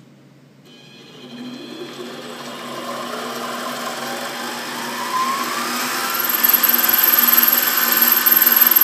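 Central Machinery precision mini lathe's variable-speed motor starting up and spinning up, its whine rising in pitch and growing louder over several seconds. From about six seconds in it runs steadily at speed, with a high-pitched whine on top.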